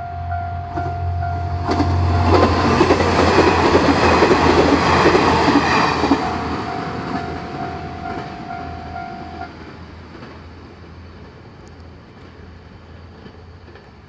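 A diesel railcar passes the level crossing, loud for about four seconds with wheels clattering on the rails, then fades away. The crossing's electronic warning bell keeps ringing its steady repeated tone and stops about nine and a half seconds in.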